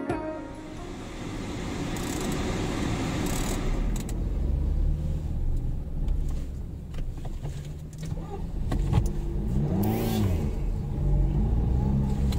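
Car driving in town traffic, heard from inside the cabin: a steady engine and road rumble, with a short rise and fall in pitch about nine to ten seconds in.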